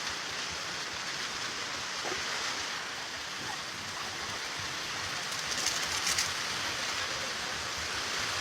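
Steady sizzling of vegetables sautéing in a hot pan, with a few brief crackles about five and a half to six seconds in.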